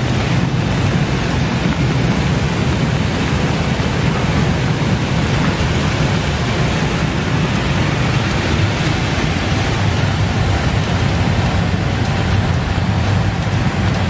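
Stainless-steel air-bubble food washing machine running: a steady, loud low hum from its blower and motors over an even churning hiss of agitated water.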